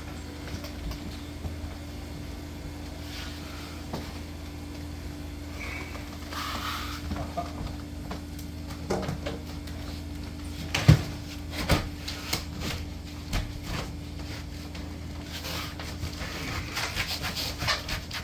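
A window unit being set into its opening: scattered knocks and bumps, the two loudest about eleven and twelve seconds in, with rubbing and rustling toward the end, over a steady low hum.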